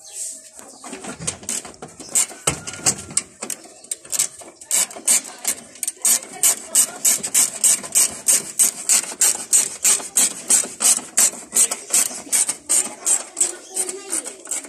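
Hand socket ratchet turning a headlight mounting bolt, its pawl rasping on each back-swing at about three strokes a second. The strokes are uneven at first and become steady and louder from about four seconds in.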